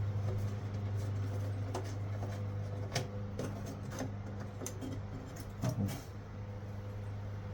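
Scattered light clicks and knocks of small parts and tools being handled while working on a truck's blower motor resistor, over a steady low hum.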